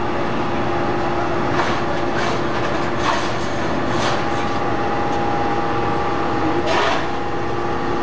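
Hydraulic scrap-metal baler and excavator running together: a steady machinery drone with a few constant tones, broken by sharp clanks of scrap metal five or so times.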